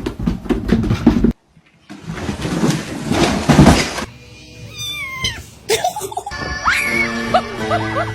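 A loud rush of noise, then a cat meowing in a few gliding calls near the middle, followed by music with steady held notes.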